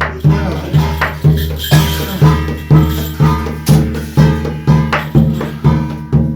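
Korean shamanic gut ritual music: percussion beating strongly about twice a second over sustained low ringing tones, with rattling, jingling percussion between the beats.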